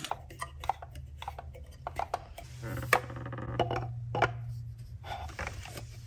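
Scattered hard clicks and knocks of plastic and brass fittings as a PVC pipe with a threaded brass adapter is handled and pushed onto the outlet of a small submersible aquarium pump, over a steady low hum.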